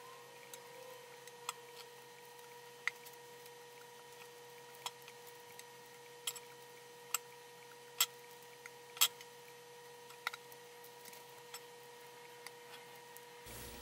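Raw shrimp being peeled by hand over a stainless steel sink: faint, irregularly spaced sharp clicks as the shells and tails come off, over a steady faint hum.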